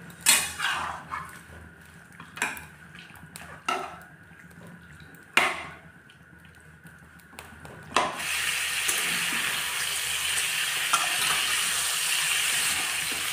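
Pork cubes scraped and turned with a metal spatula in a dry pan, a few scattered scrapes and clicks at first. About eight seconds in, a steady sizzle starts as the pork begins to fry without oil.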